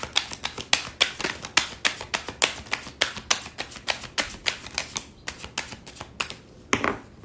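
A deck of tarot cards shuffled by hand: a fast run of crisp card snaps, several a second, that thins out and stops near the end.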